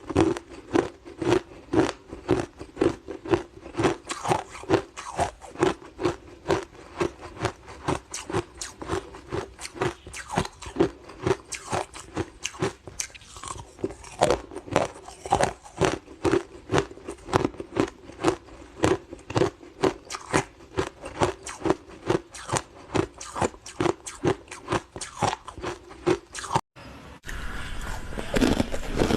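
Close-miked crunching and chewing of hard frozen matcha ice, a quick, even run of bites at about two crunches a second. A little before the end it cuts off abruptly and gives way to a louder, steadier noise.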